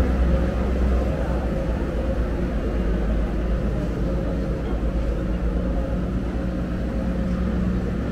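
Steady busy-street ambience dominated by a low rumble, with no single sound standing out.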